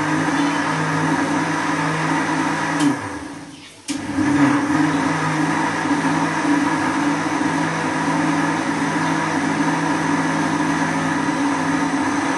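Electric mixer grinder running steadily with a motor hum, grinding the boiled mustard greens. About three seconds in it is switched off and the motor winds down with a falling pitch; a second later it starts again and runs steadily.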